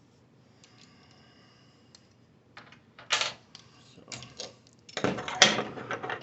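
Sharp metallic clicks and clatter as a fresh drill bit is fitted and tightened in the drill's chuck: a few separate clicks, one loud one about three seconds in, then a quick run of clicking near the end.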